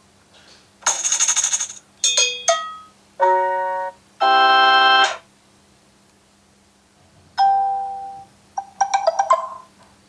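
Samsung Galaxy S8 notification tones previewing from the phone's speaker one after another as each is tapped in the notification sound list: six short chimes and jingles with pauses between them, one a held organ chord about four seconds in.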